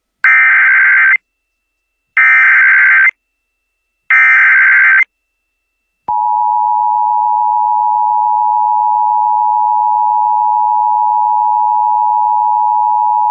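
Emergency Alert System flash flood warning opening. Three short bursts of digital data tones (the SAME header), each just under a second long and about a second apart. About six seconds in, the steady two-tone EAS attention signal begins and holds at an even level.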